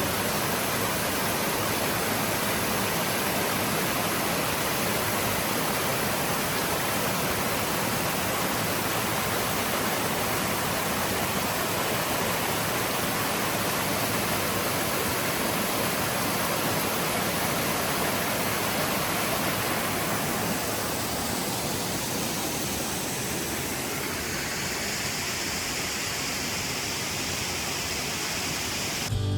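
Many small waterfalls cascading off a hillside into a river: a steady, even rush of falling water. About twenty seconds in it turns slightly quieter, with a higher hiss.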